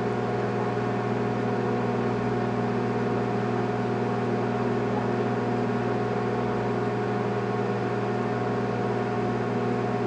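Sharp household microwave oven running: a steady mains hum with noise from the oven over it.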